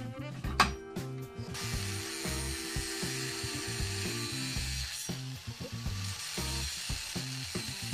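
Metal clanks and knocks at a bench vise, one sharp and loud, as a rusty steel bar is clamped. Then, about a second and a half in, a small angle grinder with a thin cut-off (zip) disc starts cutting through the steel, a steady hiss of grinding with a high whine. Background music plays underneath.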